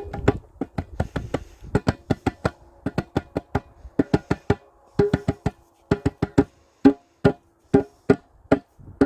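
Quick, irregular sharp clicks and knocks, often in runs of three or four, over a faint steady hum.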